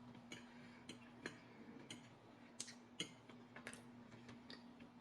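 Faint, irregular soft clicks and smacks of someone eating and chewing cheesecake, about one or two a second, over a faint steady low hum.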